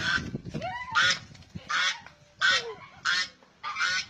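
Domestic geese honking: a run of about six harsh, rasping honks, one every two-thirds of a second or so.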